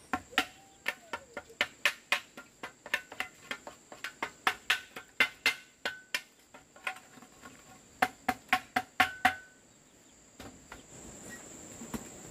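Rapid chopping with a blade, about four sharp blows a second, some with a short metallic ring, stopping about nine and a half seconds in. A steady high drone of insects runs behind.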